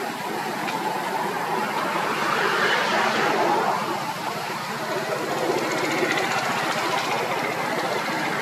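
A running engine, steady, swelling a little about two to three seconds in and dipping briefly after four.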